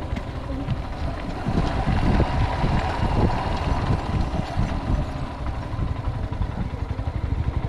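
Motorcycle engine running with wind noise on the microphone. Near the end it settles into an even, regular beat like an idle.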